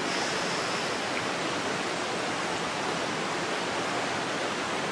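Steady rush of a waterfall and the river below it.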